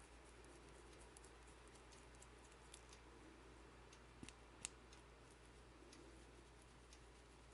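Faint, scattered small clicks and ticks of a suspension key ring's coil spring and threaded metal parts being handled and twisted in the fingers, with two sharper clicks a little past the middle.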